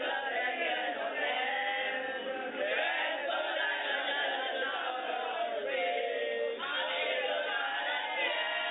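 A group of boys reading aloud together in unison, many overlapping voices speaking the same text at once.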